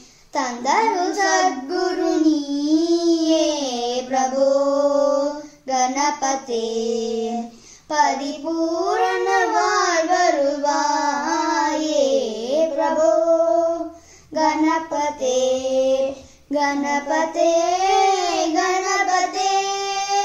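A child singing a devotional song solo without accompaniment, in long held, wavering notes with short breaks for breath between phrases.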